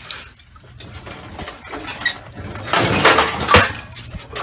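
Scrap metal clattering and scraping as a piece of sheet metal is pulled out of a scrap pile, with scattered light knocks and then a dense stretch of clanking about three seconds in.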